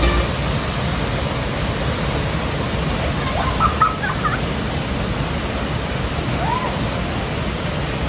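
Waterfall pouring into a deep pool: a steady, even rush of water, with a few faint short chirps about halfway through.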